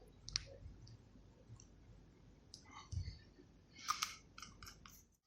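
Faint, scattered clicks and light taps of small objects being handled: one click about half a second in, a few more near three seconds, and a quick cluster around four seconds.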